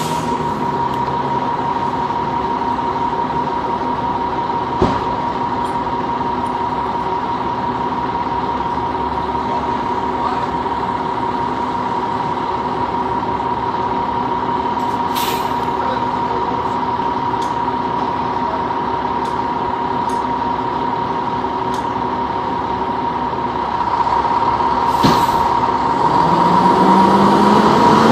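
Fire truck's Cummins ISM diesel engine idling, with a steady high-pitched tone over it and a couple of short air hisses. Near the end the engine revs up, its pitch rising, as the truck moves off.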